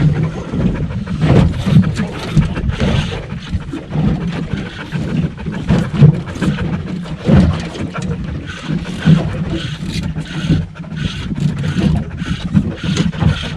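Wind buffeting the microphone over water slapping against the hull of a small aluminium boat, with irregular knocks and thumps.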